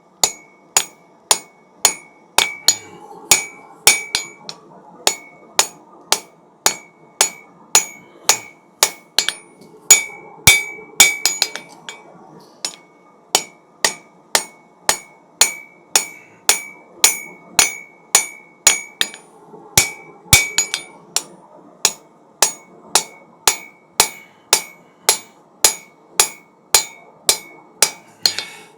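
A 1,000 gram hammer striking hot mild steel on an anvil at about two blows a second, each blow ringing with a high metallic tone, with a brief pause about twelve seconds in. The steady blows are forging a knife point by packing in the corner of the bar.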